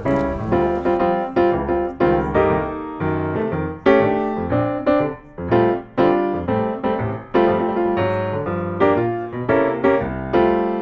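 Background piano music: a run of notes and chords struck one after another, each ringing and dying away.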